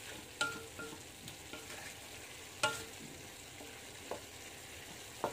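Wooden spatula stirring yardlong beans and pork frying in a stainless steel wok, over a faint sizzle. A few sharp knocks of the spatula against the pan, some leaving a brief metallic ring, with the loudest about two and a half seconds in.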